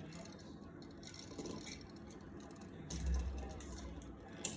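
Faint handling noises of wiring a wall light switch: a few small clicks and scrapes, with a low thump about three seconds in.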